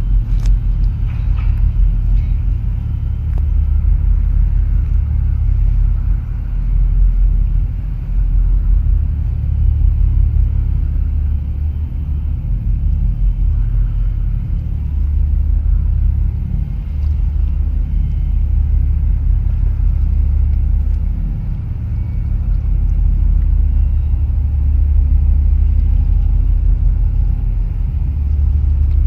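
Steady low rumble aboard a boat moving across harbour water, swelling and dipping in loudness every few seconds.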